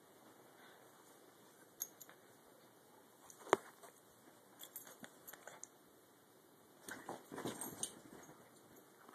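A small white dog scuffling about right at a handheld phone: scattered light clicks and rustles, with one sharp click about three and a half seconds in and a quick flurry of clicks near the end.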